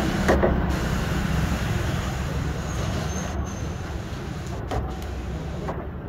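Steady low rumble of road vehicles, with a short clattering sound about half a second in.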